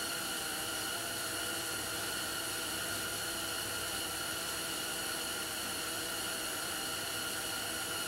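Steady, even hiss with a few constant thin high-pitched whining tones, unchanging throughout; no distinct tool clicks or knocks stand out.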